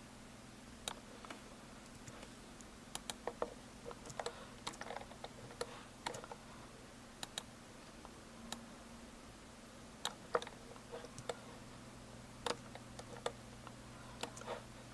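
Irregular clicks of computer keys and mouse buttons, sometimes several in quick succession and sometimes a second or two apart, over a faint steady hum.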